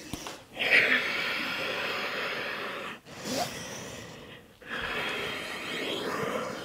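A woman breathing deeply and audibly: two long breaths of about two and a half seconds each, with a short pause between them.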